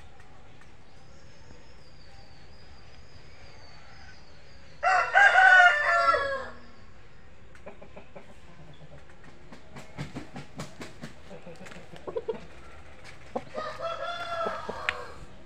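Rooster crowing: one loud crow about five seconds in, falling away at its end, and a second, fainter call near the end. Scattered faint clicks and taps come between the two.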